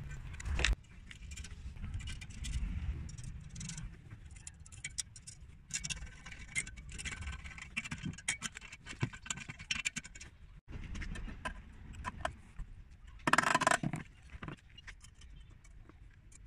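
Small metal hardware being worked on a steel plate: nuts and bolts clinking and clicking as they are fitted and tightened with a socket wrench. One louder scrape of metal comes about thirteen seconds in.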